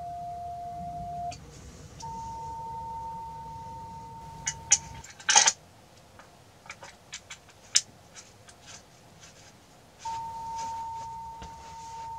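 A steady single-pitch CW tone from the radio stops about a second in. A slightly higher steady tone follows for about three seconds. Then come sharp clicks and one loud clatter as the power compensator is fitted onto the magnetic loop's coax connector, and the higher tone returns near the end.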